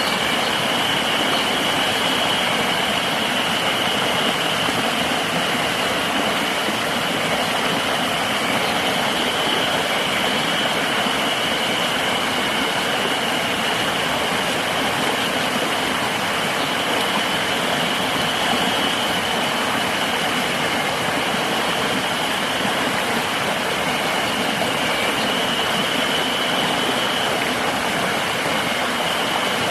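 River water rushing steadily, with a continuous high-pitched insect drone over it.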